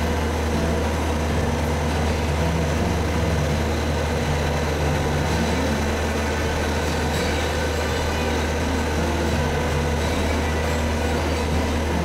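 Road roller's engine running with a steady low drone as the steel drum rolls slowly, with no distinct crunch or pop standing out.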